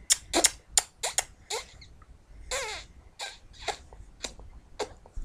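A run of short, sharp lip smacks, like kisses, a couple a second, with a brief whiny vocal sound from a small child about two and a half seconds in.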